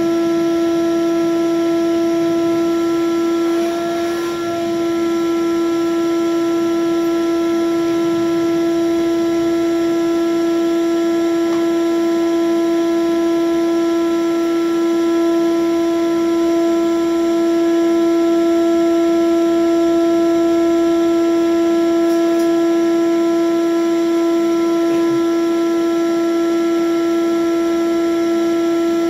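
Shop vacuum motor running steadily as a welding fume extractor, a loud unchanging whine, with the crackle of a 6011 stick-welding arc beneath it.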